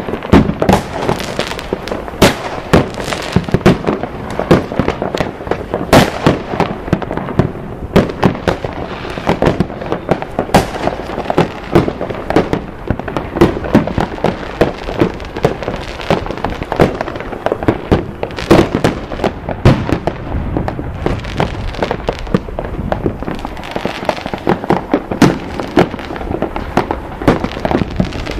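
Many fireworks and firecrackers going off together in quick succession: a nonstop run of sharp bangs and crackles, several a second, with louder reports every second or so.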